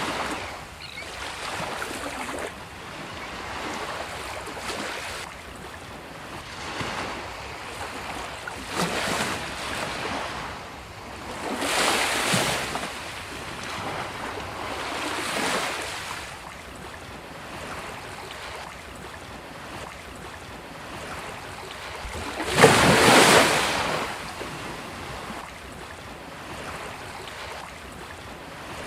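Sea waves breaking on a beach: surf washing in and out in swells every few seconds, with one louder wave breaking about two-thirds of the way through.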